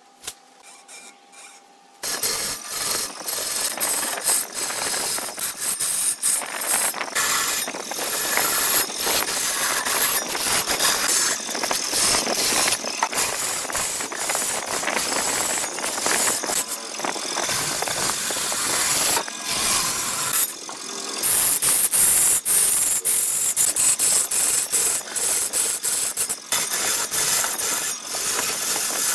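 A turning tool cutting into a large log spinning on a big wood lathe: a loud, continuous clattering scrape of steel on wood, starting about two seconds in, with a short dip about two-thirds of the way through.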